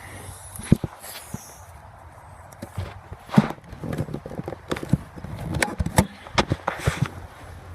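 Irregular knocks and thuds, a few in the first second and a dense cluster in the second half.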